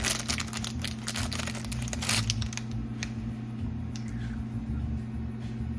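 Rapid crinkling crackles from something being handled, thinning out after about two and a half seconds to a few faint ticks over a steady low hum.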